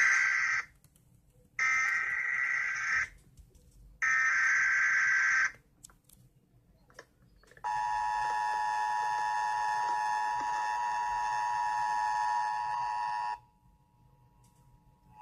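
Emergency Alert System opening. First come the end of one burst and two more bursts of the SAME digital header's data tones, about a second and a half each. Then, after a short gap, the steady two-tone EAS attention signal sounds for about six seconds.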